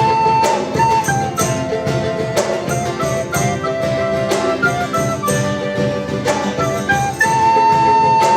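Band playing an instrumental break in a folk-style song: a melody of held notes over a steady percussion beat, with no singing.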